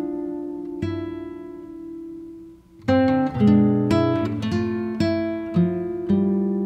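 Background music of plucked notes that ring and fade, breaking off briefly a little before halfway and then resuming with a quicker run of notes.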